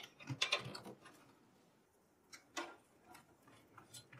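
SATA data cables and their plastic connectors being handled and plugged into a PC motherboard: a quick run of small clicks and rattles in the first second, then a few separate light clicks.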